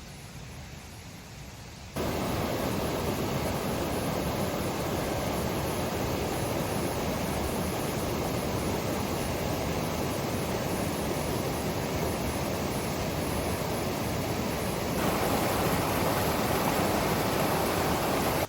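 Steady rush of water from a high waterfall, starting abruptly about two seconds in, growing louder near the end, then cutting off.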